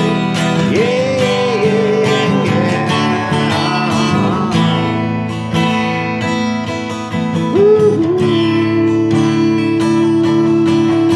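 Acoustic guitar strummed in steady chords, with a man's voice singing wordless notes over it, ending on one long held note.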